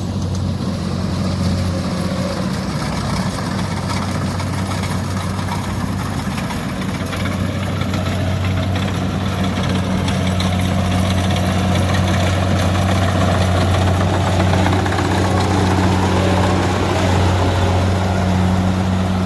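Kubota DC70 combine harvester running steadily: a low, even engine hum under a wide rushing noise from its machinery, a little louder in the second half.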